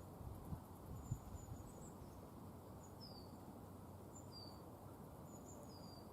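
Faint outdoor ambience: a steady low rumble of background noise with scattered faint, high-pitched chirps of small birds, a few of them short falling notes. Two soft low thumps about half a second and a second in.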